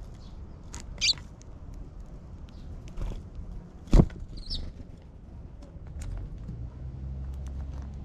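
Eurasian tree sparrows feeding on a wooden board: two short high chirps, about a second in and again after about four and a half seconds, with small pecking ticks on the wood. A sharp knock about four seconds in is the loudest sound. A low steady hum comes in for the last two seconds.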